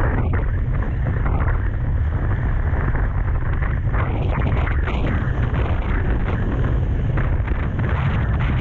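Strong storm wind buffeting the microphone: a loud, steady rumble with a rushing hiss over it.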